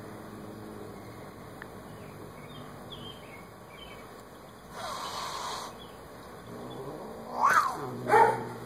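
Angry Siamese cat growling low, hissing for about a second midway, then giving two loud yowls that bend up and down in pitch near the end, warning off a rabbit.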